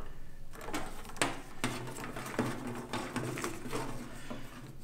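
Handling noise of network patch cables being plugged and moved about on battery cases: scattered light clicks and knocks, over a low steady hum.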